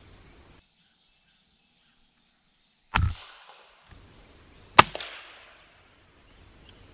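Two sharp, muffled reports from a suppressed Savage bolt-action .22 LR rifle, about two seconds apart. The second is the louder, and each trails off in a brief echo. Before them, the faint woodland background cuts to dead silence.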